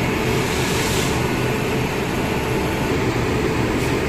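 Electric locomotive standing at the platform with its cooling blowers running: a steady, even roar, heavy in the low end.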